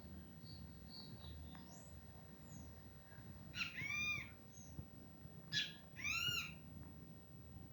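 A small songbird calling twice, about two seconds apart. Each call is a sharp note followed by a drawn-out, arching call rich in overtones, with fainter high chirps before them.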